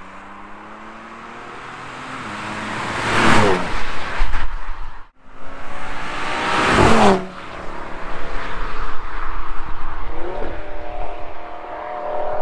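Turbocharged sports cars, an Audi RS3 five-cylinder and a BMW M2 Competition six-cylinder, accelerating hard past the roadside, the exhaust pitch dropping as each car goes by. Two loud pass-bys come one after the other, split by a sudden cut. Then an engine runs on at high revs, which dip and climb again near the end as at a gear change.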